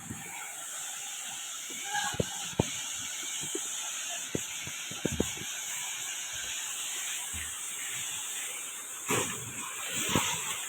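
Waterfall water rushing with a steady hiss, with scattered short clicks and knocks.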